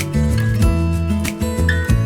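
Background music: a pop song with strummed acoustic guitar and a steady beat.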